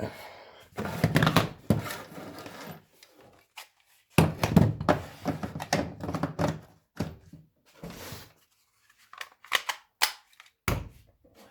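Hard plastic tools and batteries clattering and knocking as they are handled on a workbench. Near the end there is a run of sharp separate clicks, the sound of cordless tool batteries being clicked onto their chargers.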